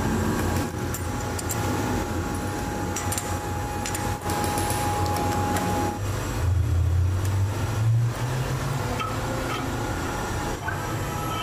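Steady low machine hum in a metal workshop, with scattered light metallic clicks and clinks as a cast-iron meat grinder body is handled in a stationary lathe chuck.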